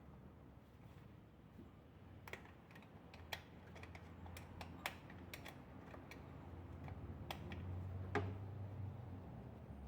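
Scattered light metal clicks and clinks of a small wrench working on engine bolts, irregular and a dozen or so in all, the sharpest about eight seconds in, over a low steady hum.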